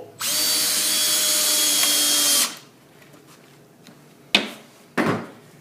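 Power drill with an extension bit driving a screw into a pocket hole: the motor runs steadily at one pitch for about two seconds, then stops abruptly. Two sharp knocks follow near the end, about half a second apart.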